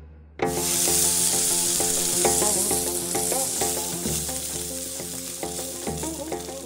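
A sizzling hiss cuts in suddenly about half a second in and slowly fades, over music of sustained, shifting notes.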